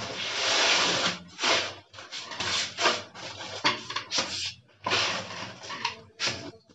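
Plastering trowel scraping cement mortar: one long scrape in the first second, then a series of shorter, irregular scrapes as mortar is scooped off the tiled floor and pressed onto the wall.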